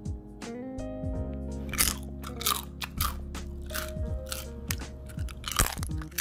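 Crisp air-fried dried pollock skin being bitten and chewed: a string of sharp, irregular crunches, loudest about 2 s in and again near the end, over soft background music.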